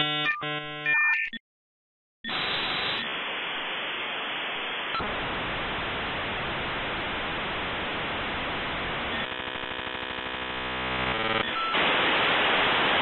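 Dial-up modem connecting: a few beeping dial tones, a short silence, then the handshake's long steady hiss. About two-thirds of the way through the hiss turns into a buzzing, rapidly repeating pattern, and near the end it becomes louder hiss.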